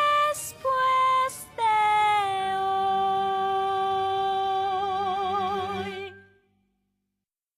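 Female voice singing the closing notes of a musical number over accompaniment: two short notes, then one long held note that wavers with vibrato near its end before fading out.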